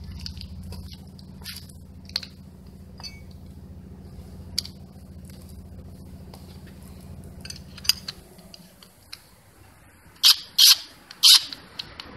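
Light metallic clicks and clinks as a hook attachment is fitted to a cordless drill driver, over a steady low hum that stops about eight seconds in. Near the end come three louder, sharp clacks.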